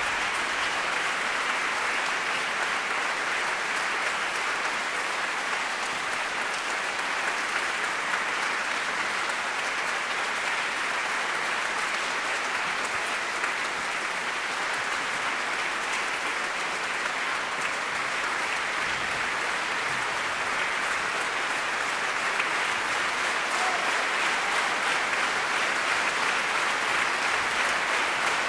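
Concert audience applauding steadily, growing a little louder in the last few seconds.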